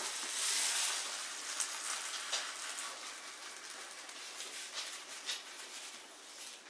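Leftover stir fry sizzling in a hot Copper Chef nonstick frying pan, the sizzle fading away, with a few light clicks and scrapes as a utensil pushes the food out of the pan onto a plate.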